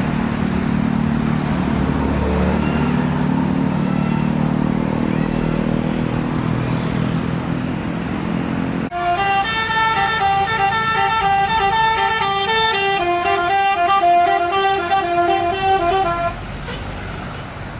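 A bus engine runs close by, then about nine seconds in a bus's 'telolet' multi-tone horn plays a jingle of changing notes for about seven seconds before cutting off suddenly.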